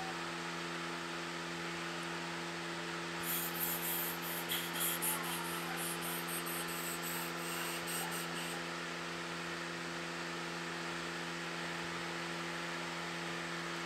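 A steady low electrical hum. From about three to eight and a half seconds in comes a run of quick, hissy brushing strokes: a makeup brush swept over the face.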